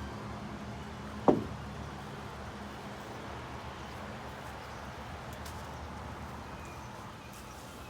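A steady low hum, with one short, loud sound about a second in that drops quickly in pitch.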